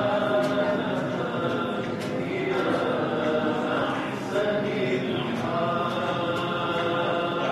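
A crowd of worshippers chanting together, many voices holding long sung phrases of about two seconds each.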